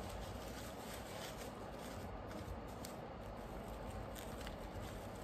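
Faint rustling and light clicks of soap-flower stems being handled and arranged in a small hand-held bouquet, over steady room hiss.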